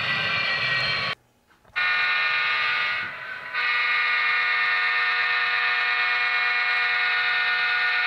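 Model diesel locomotive's DCC sound decoder sounding a multi-chime air horn through its small onboard speaker: a short blast, a brief dip, then one long steady blast of about four seconds. Before a cut about a second in, the same locomotive's running sound is heard.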